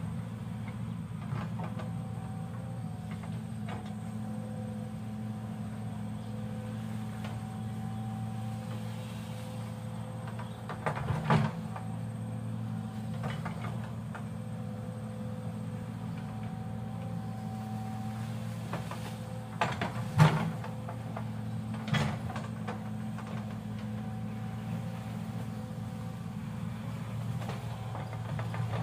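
Excavator's diesel engine running at a steady pitch, with a few sharp knocks and clanks, the loudest about two-thirds of the way through.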